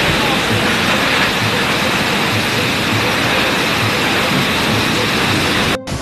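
Torrential rain driven by strong wind: a loud, steady rushing noise. Near the end it cuts off abruptly and gives way to more heavy rain, slightly quieter.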